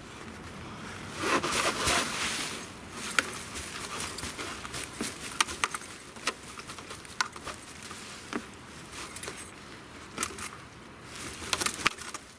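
Fallen chestnut leaves rustling and pattering as they are shaken out of a blower-vac's cloth collection bag into a plastic compost bin, with the bag's fabric rustling and scattered light clicks. The rustling is loudest about a second in and again near the end.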